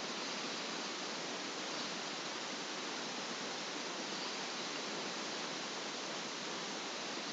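Steady, even hiss of a recording's background noise, with no other sound.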